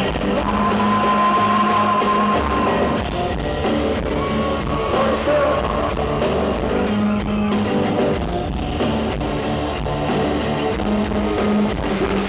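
Rock band playing live in an acoustic arrangement: guitars with singing that holds long notes.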